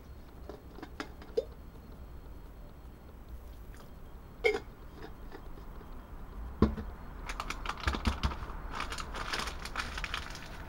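Stainless steel hand spice mill being twisted over the pot: a few sharp metal clicks and a clink, then about seven seconds in a dense crunchy crackle for some three seconds as it grinds.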